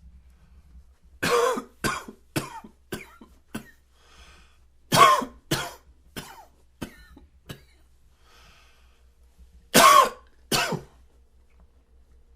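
A man coughing in three fits: a run of about six coughs that tail off, another run of about six, then two hard coughs near the end.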